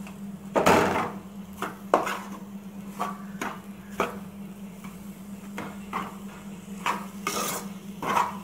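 Steel spoon scraping and knocking against a metal pan in irregular strokes while stirring grated coconut and jaggery, the jaggery just added and being worked in to melt.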